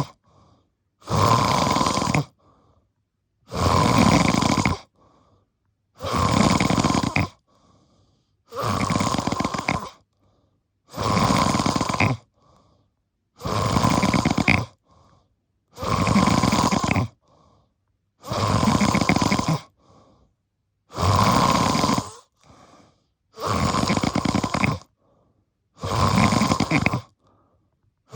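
A person snoring deeply: one long snore roughly every two and a half seconds, each lasting over a second, with quiet gaps between breaths.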